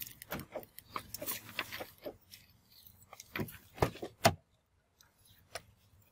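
A run of irregular light clicks and clacks of small hard objects being handled, with a sharper knock about four seconds in.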